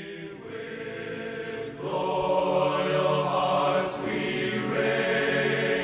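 Slow background music of held, choir-like voices, swelling louder about two seconds in.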